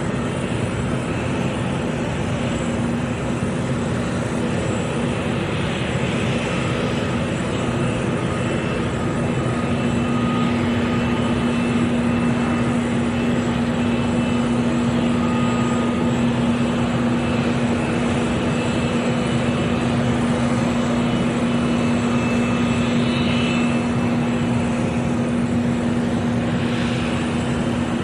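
Jet aircraft engines idling at an airport: a steady roar with a low, even hum that grows stronger about nine seconds in, and faint higher whines over it.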